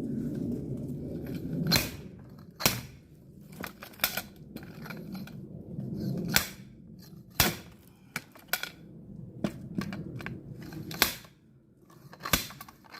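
Axe blows splitting firewood: a string of sharp wooden cracks and knocks, roughly one every second or two.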